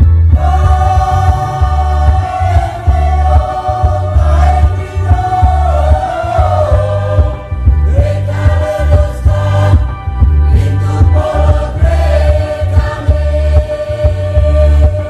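Church choir singing a hymn in several voices, with a steady, pulsing low beat underneath.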